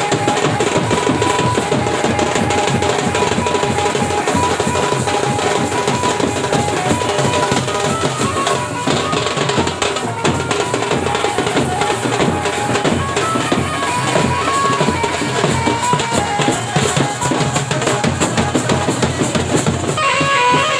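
Loud music with heavy drums and bass drum under a held melody line.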